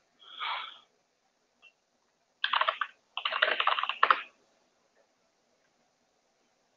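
Typing on a computer keyboard: two quick runs of keystrokes starting about two and a half seconds in, the second one longer.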